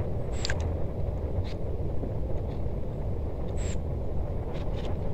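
Steady low outdoor background rumble, with a couple of faint, short high-pitched chirps about half a second and three and a half seconds in.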